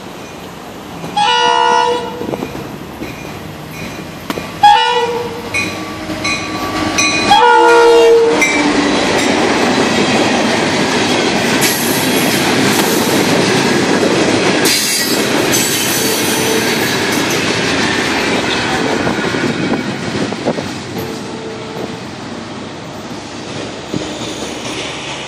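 Freight locomotive horn sounding three blasts, the middle one shorter. The work train's ballast cars then roll past with a loud, steady rumble and clatter of wheels on rail, which eases off near the end.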